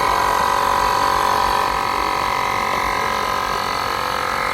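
Small portable electric tyre inflator running steadily with a high, even motor-and-compressor whine while pumping up a bicycle inner tube.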